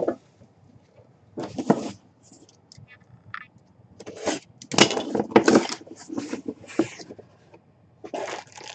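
A cardboard box being opened by hand: the lid and packaging scrape and rustle in several short, irregular bursts.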